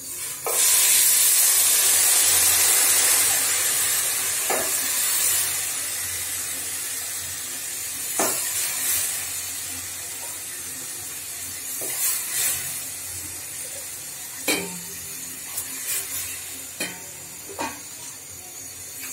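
Boiling water poured onto pulao rice frying in hot oil in a steel pot: a sudden loud hiss and sizzle about half a second in, loudest for the first few seconds, then settling to a steady, quieter sizzle. A few sharp knocks come through along the way.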